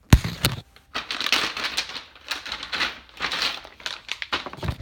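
Motherboard packaging being handled: cardboard boxes and plastic wrapping crinkling and rustling, with a sharp knock at the start and another near the end.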